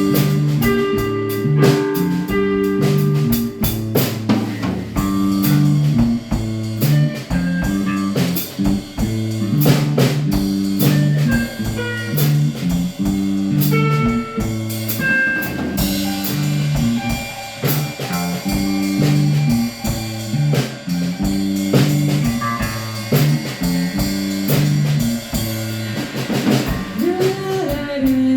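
Instrumental band music with guitar, bass and a drum kit playing a steady, repeating bass line.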